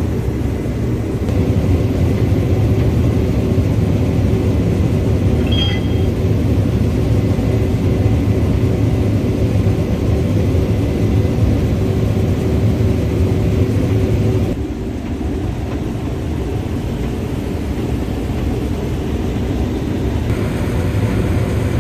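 Combine harvester running steadily while harvesting corn, a loud low drone. There is a brief high beep about six seconds in, and the drone drops slightly in level about two-thirds of the way through.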